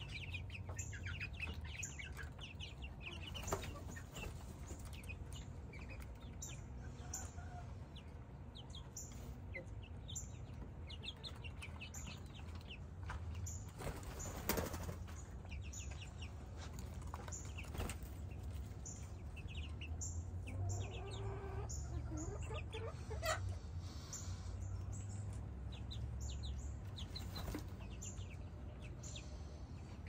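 Young chickens peeping and chirping with many short, high calls, with a few wing flaps and sharp knocks as they hop and flutter about.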